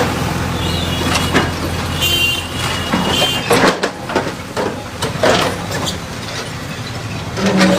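Diesel engine of a heavy vehicle running steadily, then fading after about three and a half seconds. A short high tone sounds about two seconds in, and sharp knocks come every second or so.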